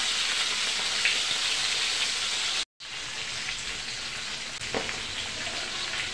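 Fish heads sizzling as they fry in hot oil in a steel wok, a dense, even crackling hiss. It cuts out for a moment about two and a half seconds in and comes back softer.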